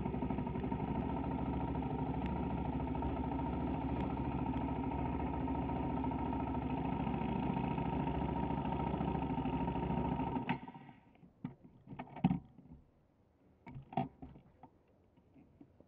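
Go-kart engine running steadily at low speed, then switched off about ten and a half seconds in. A few short knocks and clicks follow.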